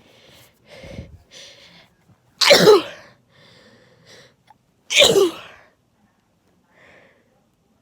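A person sneezing twice, about two and a half seconds apart, in a sneezing fit. Shorter, softer breaths lead up to the first sneeze.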